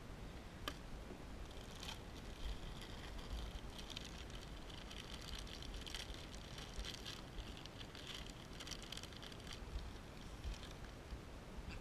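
Clear plastic bag crinkling and rustling as a hand rummages in it, with a few sharp clicks and a faint low wind rumble on the microphone.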